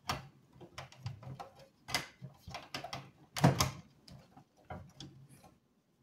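Screwdriver work on the metal bracket of an ISA video card in a steel computer case: scattered clicks, scrapes and light metallic knocks, the loudest about three and a half seconds in.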